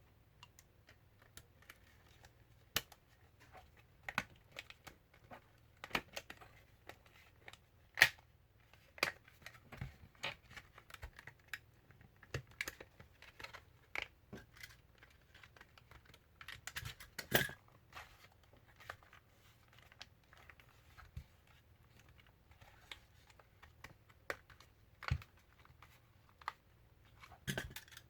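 Hands working on small hard parts: irregular light clicks, taps and rustles, with a louder cluster of clatter about seventeen seconds in.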